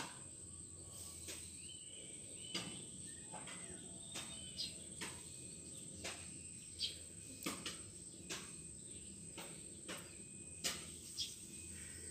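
Faint steady high-pitched insect drone, cricket-like, with scattered soft clicks and a few brief faint squeaks.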